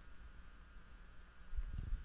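Quiet room tone with a faint steady hum; about one and a half seconds in, a low rumbling handling noise starts as a microphone is moved.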